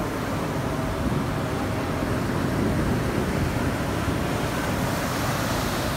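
Ocean surf breaking and washing up the shore, a steady rush, with wind buffeting the microphone.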